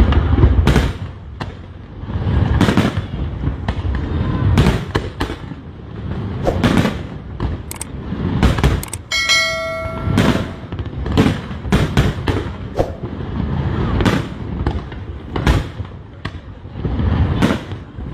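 Fireworks going off: a rapid, uneven series of sharp bangs and crackles over a deep rumble of booms. About halfway through, a brief steady whistling tone sounds for about a second.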